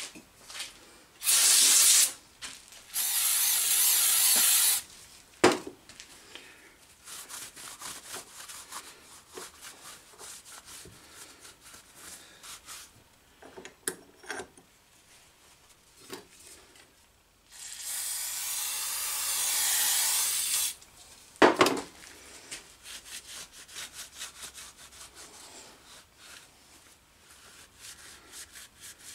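Three hissing sprays, the first short and the last about three seconds long, are the loudest sounds. Between them a shop towel rubs and wipes old gummy oil off the cast-iron tailstock base of an Atlas lathe, with small scrapes and two sharp knocks of metal on metal.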